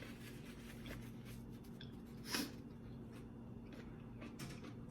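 Quiet eating noises: faint mouth clicks and chewing over a low steady hum, with one short louder sound, a slurp or sniff, about two and a half seconds in.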